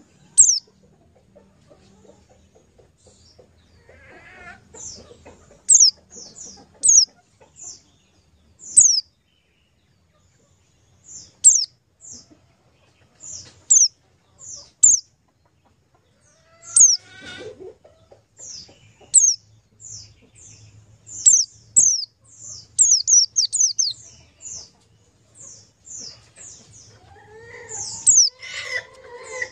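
Bird chirping: many short, high chirps, each dropping quickly in pitch. They come at irregular intervals and more thickly in the second half. A few lower calls are mixed in.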